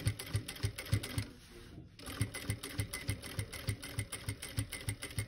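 Sewing machine stitching through quilt layers and binding at about five stitches a second, the needle's thumps steady and even. The stitching stops briefly about a second and a half in, then picks up again at the same pace.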